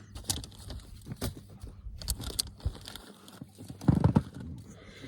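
Irregular light knocks and clicks, with two heavier low thumps about four seconds in.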